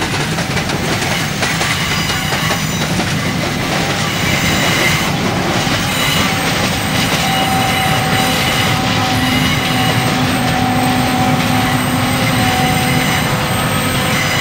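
HO scale model freight cars rolling steadily along curved track: a continuous rattle of small wheels on the rails. A faint, steady whine joins in about halfway through.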